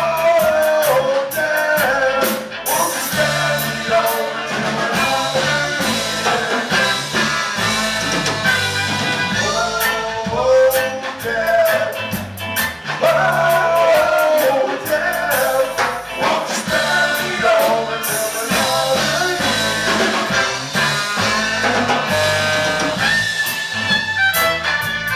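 A live band playing: a bowed fiddle, saxophone, electric guitars and drums together.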